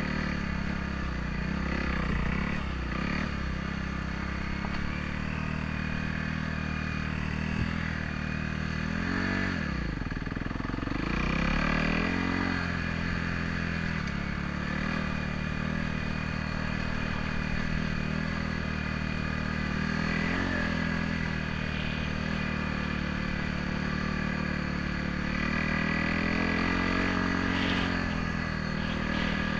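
Trail bike engine running while being ridden, its pitch dropping sharply about a third of the way in as the throttle is eased off, then climbing again as it picks up speed.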